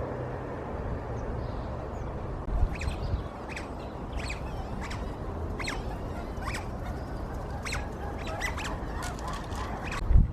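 Bird calls: short, high calls repeated roughly once a second, coming faster and overlapping near the end, over a steady background noise.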